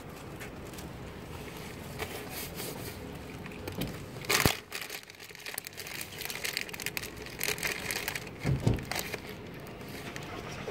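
A cat chewing potato chips: irregular crisp crunching and crackling, with louder crunches about four seconds in and again about eight and a half seconds in.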